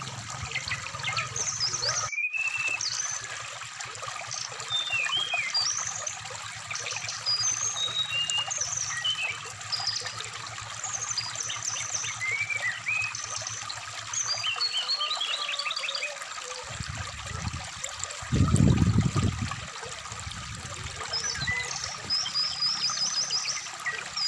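Brown-chested jungle flycatcher (SRDC) singing quick, varied whistled chirps over a steady trickling stream. The audio cuts out for an instant about two seconds in, and a low thud, the loudest sound, comes about three-quarters of the way through.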